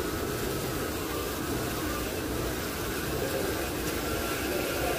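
Steady machine noise: an even rushing hiss with no clear beat and no pauses.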